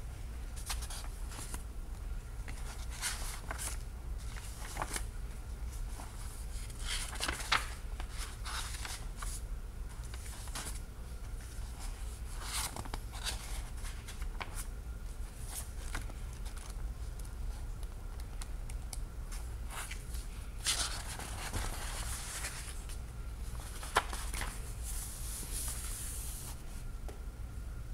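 Paper book pages being handled and turned by hand: repeated rustling and crinkling, with a few longer swishes as pages turn over, above a steady low hum.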